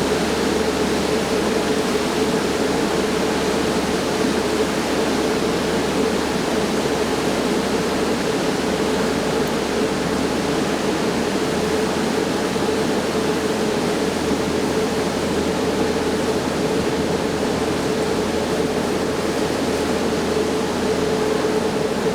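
Tour boat under way: a steady rushing noise with an even, unchanging hum from the boat's engine.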